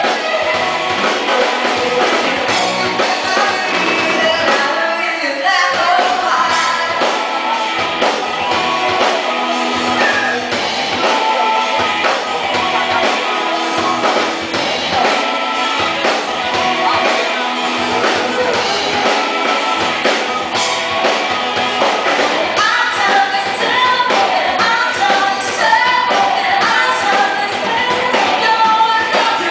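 Live Latin band playing a song with lead vocals, singing over drums, timbales and electric guitar.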